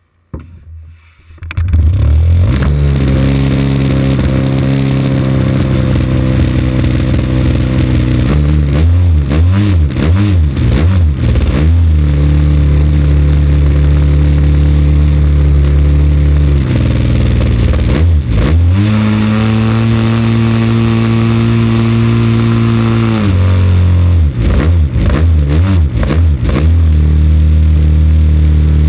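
AGM 30cc two-stroke petrol engine of a large RC model plane catches and starts up about a second in, then runs on the ground, its speed wavering up and down and held higher for a few seconds past the middle.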